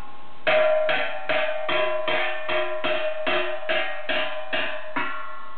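A stainless steel stockpot struck by hand as a drum, about a dozen hits in a steady beat of roughly two and a half a second, each hit ringing metallically; the beat stops near the end.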